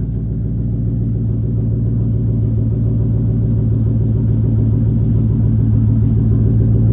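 Ford Mustang GT (S197) with the 5.0 Coyote V8 idling steadily in its first minute after a cold start, through a cat-delete exhaust with an X-pipe, resonators and quad tips. A steady low hum with an even, fast pulse.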